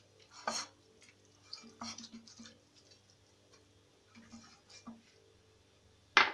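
Silicone pastry brush greasing the bottom of a glass baking dish with oil: a few soft, scattered brushing and tapping sounds, then a sharp knock near the end, the loudest sound.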